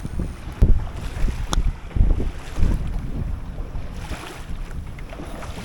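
Wind buffeting the action camera's microphone in uneven gusts, with one short sharp click about a second and a half in.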